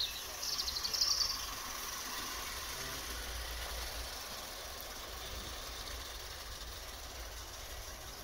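Small live-steam garden-railway locomotive running on 16mm-gauge track. A quick run of exhaust puffs comes about a second in, then a steady soft steam hiss.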